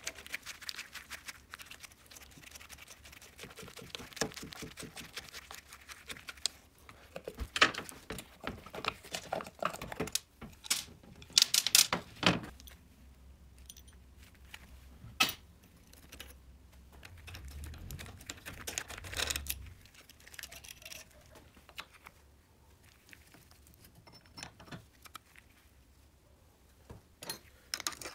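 Hand-tool work on a Riga 12 moped's engine as it is taken apart: a screwdriver prying and scraping at the aluminium casing, and clutch parts clinking together. A run of fast small ticks comes first, then several sharp metallic clicks and knocks.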